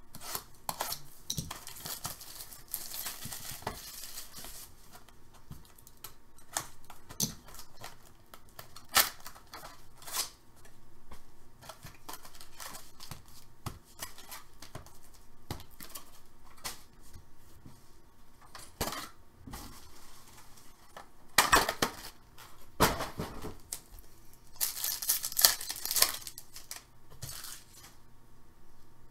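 Hands tearing open a sealed hockey trading-card box and handling its foil packs: tearing and crinkling of wrapping and cardboard, with scattered clicks and taps. The loudest crinkling comes in the last third.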